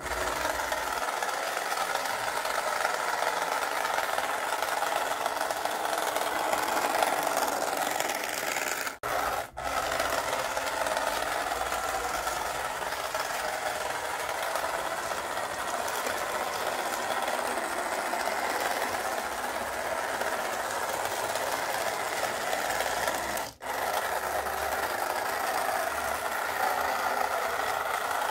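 Small electric gear motors of a remote-control cardboard bulldozer model running steadily with a whirring rattle, briefly cut off twice.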